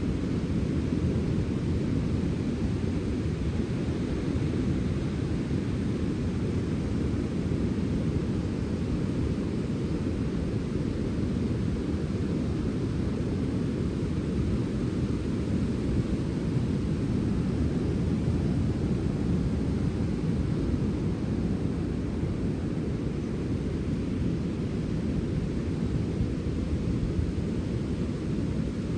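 Sea wind blowing as a steady, low rush of noise, unbroken and without distinct gusts.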